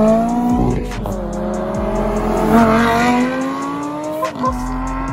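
McLaren supercar's twin-turbo V8 accelerating hard away. Its revs climb and drop back at upshifts about a second in and again about four seconds in.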